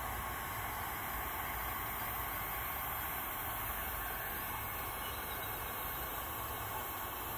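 Electric heat gun running steadily, its fan blowing a constant rushing hiss with a faint steady hum, as it is played over a plastic kayak hull to heat the sun-faded surface.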